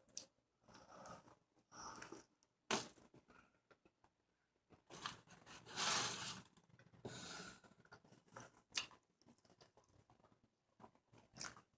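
Close-miked eating of a burger: chewing and crunching in irregular bursts, with a longer, louder stretch about five to six and a half seconds in.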